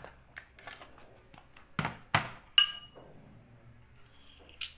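Metal spoons clinking against each other and a small ceramic dish as thick cream is scraped off: a few sharp clinks, the loudest about two seconds in, one ringing briefly, and a lighter one near the end.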